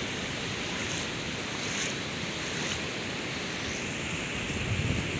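Sea surf washing steadily onto a beach, with wind rumbling on the microphone.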